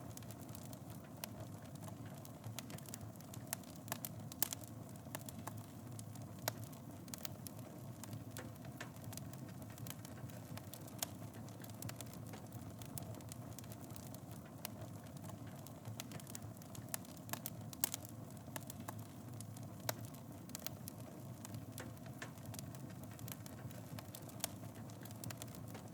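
Fireplace wood fire burning, with a steady low rumble of flame and frequent sharp crackles and pops scattered irregularly throughout.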